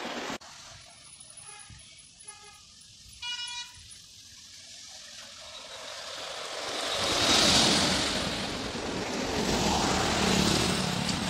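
Highway traffic going past close by: tyre and engine noise swells as vehicles approach and pass, loudest about two-thirds of the way through, with a heavy lorry's low engine drone near the end. A short horn honk sounds about three seconds in.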